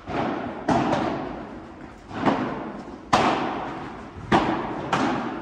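A padel rally: the ball is hit by the rackets and bounces off the court and walls, giving about six sharp knocks at uneven intervals of roughly half a second to a second and a half. Each knock echoes in the large indoor hall.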